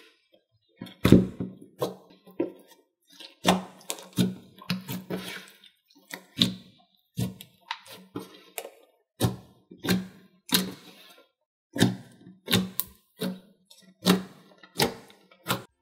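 Thick jelly slime squished and pressed by hand, giving irregular clicky pops with a soft thump, about one or two a second.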